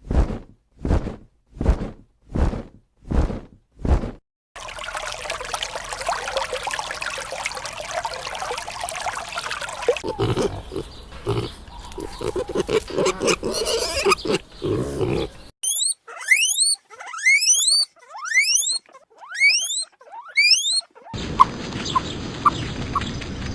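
A string of farm animal calls: pigs grunting and squealing in a run of short, evenly spaced calls and then a longer noisy stretch, followed by a bird giving repeated rising chirps, about one a second.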